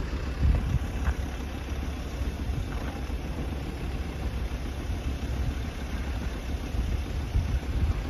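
Low, steady engine rumble with no distinct events.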